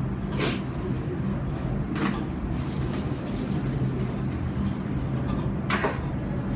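Steady low hum of room background noise, with three short hissing sounds about half a second, two seconds and near six seconds in.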